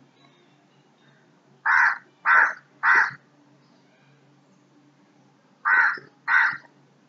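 A bird calling outside: three short calls in quick succession, then two more a few seconds later.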